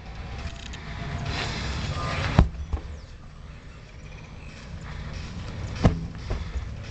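Two heavy thuds of a large tractor tire, about 300 pounds, slamming onto the ground as it is flipped, about three and a half seconds apart, each followed by a smaller bounce, over a low background rumble.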